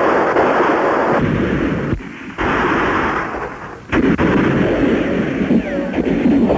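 Battle sound effects from a war drama soundtrack: gunfire and explosions in loud noisy stretches. There is a short lull about two seconds in, and a sudden loud blast just before four seconds that carries on to the end.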